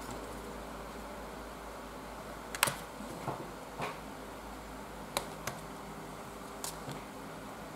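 About half a dozen short, light clicks and taps as a long straight blade is pressed down through a sheet of black clay onto a cutting mat and the cut pieces are handled, over a faint steady hum.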